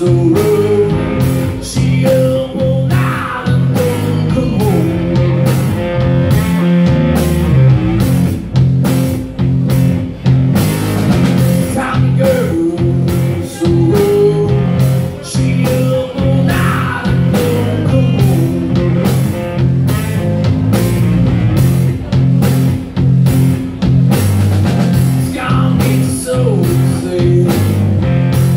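Live blues-rock band playing: electric guitar, bass guitar and a drum kit keeping a steady beat of about two hits a second, with a man singing in phrases that come and go.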